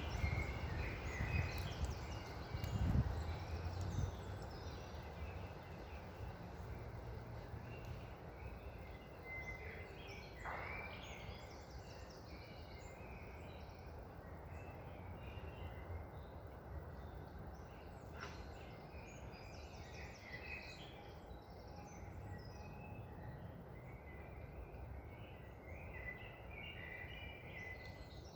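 Wild birds chirping and calling, many short scattered calls, over a steady low rush of wind in trees. The low wind rumble is heavier in the first few seconds.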